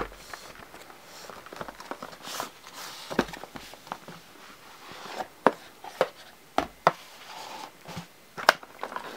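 Cardboard camera box being handled: soft rubbing and sliding as the inner box comes out of its sleeve and its lid is opened, with scattered sharp taps and knocks.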